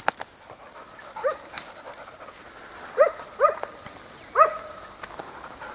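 Hunting dog barking: four short, high yelps at uneven intervals, two of them close together about three seconds in.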